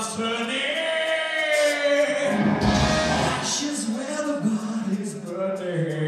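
Live heavy metal band playing: a male singer holding long notes over electric guitars, bass and drums.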